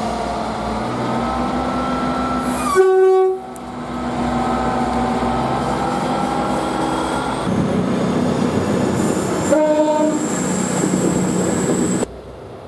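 Train air horns: a short, loud blast about three seconds in and another short blast about ten seconds in, each over the steady running noise of a train.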